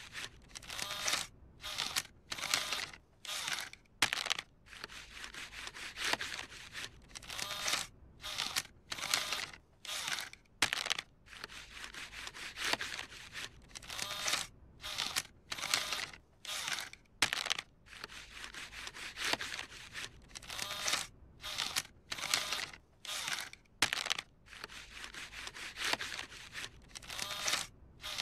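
Cartoon sound effect of a kiddie ride's bill acceptor whirring in short bursts, over and over, as it pulls in and pushes back a crumpled dollar bill: the crumpled bill is being refused.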